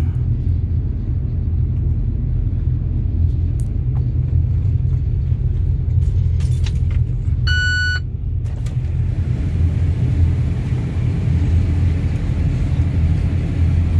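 Steady low engine rumble heard from inside a truck's cab, with one short electronic beep about halfway through.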